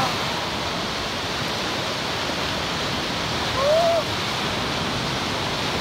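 Lake Huron surf breaking and washing up on a sandy beach: a loud, steady rush of crashing waves. A brief voice-like call rises and falls about three and a half seconds in.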